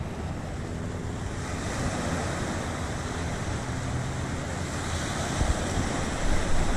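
Small waves washing onto a sandy beach, with wind buffeting the microphone; a steady sound of surf.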